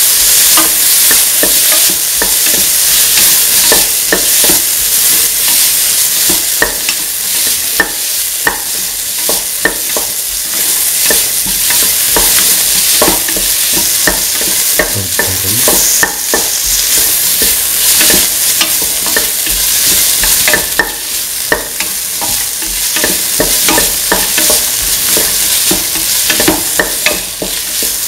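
Chopped tomatoes, onions and shallots sizzling in oil in a steel pan while they are stirred. The utensil scrapes and clicks sharply and irregularly against the pan over a steady frying hiss.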